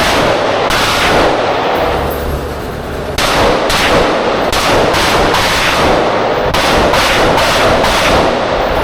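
Rapid semi-automatic fire from an AR-15-style rifle: a long string of sharp shots, about two a second in the second half, each ringing and echoing into the next.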